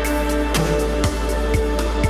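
Background music: held chords over a steady beat, with a low drum hit about twice a second.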